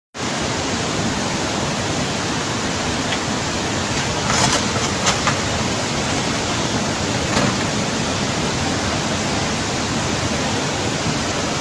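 Steady rushing of a torrent of floodwater sweeping down a street, an even hiss of water, with a few brief knocks about four and five seconds in.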